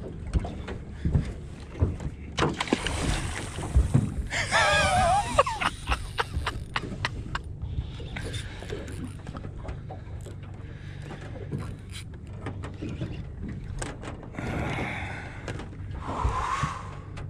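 Small boat's outboard motor idling in neutral with a steady low hum, water slapping and wind on the microphone. About four and a half seconds in, a fishing reel's drag gives a brief wavering whine as a hooked fish takes line.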